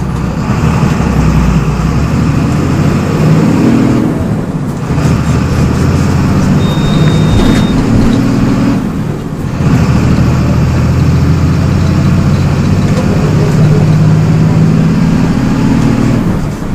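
MWM 6.12 TCAE six-cylinder turbodiesel of a Volksbus 17.210 bus pulling hard under acceleration. The engine note climbs three times, with two short drops in level about four and nine seconds in, as the manual Eaton five-speed gearbox is shifted up.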